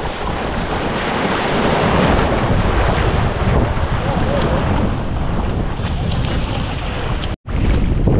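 Sea surf washing ashore with wind buffeting the microphone, a loud, steady rushing with low rumble. The sound cuts out abruptly for a split second near the end.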